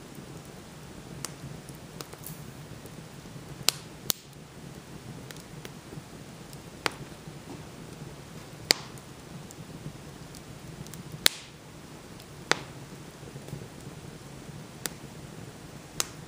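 Wood fire burning in a fireplace: sharp crackling pops at irregular intervals of one to three seconds over a low steady background.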